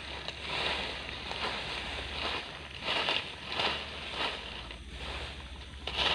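Dry leaf litter crunching and rustling as it is scraped and swept aside by hand, in irregular strokes roughly every half second or so.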